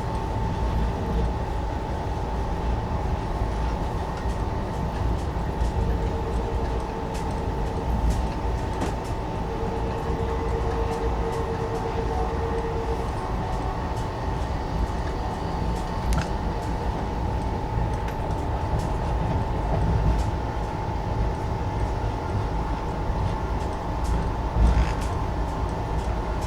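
Passenger train running, heard from inside an air-conditioned Indian Railways coach: a steady rumble of the wheels on the track with a constant hum over it. A second, lower tone comes in twice, and there are a few faint clicks.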